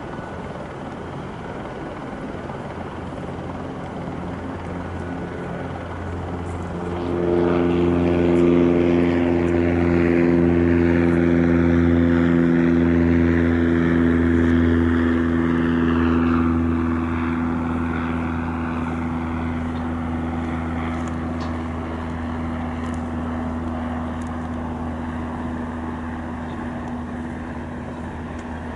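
Light single-engine piston propeller plane flying past: its engine drone comes up about seven seconds in, stays loudest for about ten seconds, then slowly fades away.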